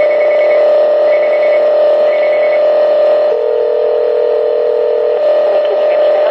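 Telephone line audio over a loud steady hum: three short high beeps in the first few seconds, then a ringing tone about two seconds long starting about three seconds in, as a call rings out.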